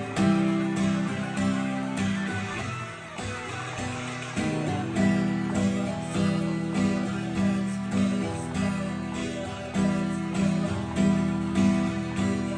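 Acoustic guitar strummed in a steady rhythm, with a stronger accented stroke about every second and a half and the chords changing as the song goes on.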